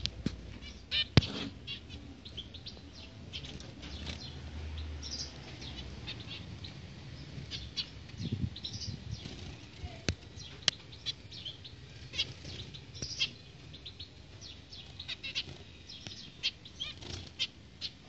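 Caged zebra finches calling with many short, high, nasal beeps, amid fluttering wings and a few sharp clicks, the loudest about a second in.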